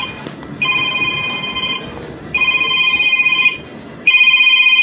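A phone ringing: a trilling electronic ring repeated in bursts of a little over a second with short gaps between, three rings in a row.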